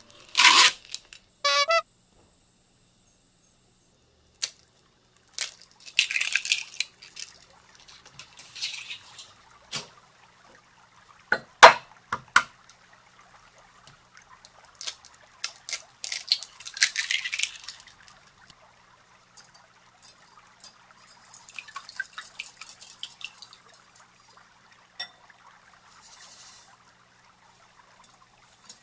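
Plastic cling wrap pulled off its roll, torn and crinkled. Later come sharp knocks of eggs cracked on a glass mixing bowl, the loudest a little before the middle, and the eggs dropping in. Near the end there is a faint grainy patter of sugar poured into the bowl.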